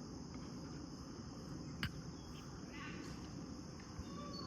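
Faint, steady chirring of crickets. A single faint click comes a little under two seconds in.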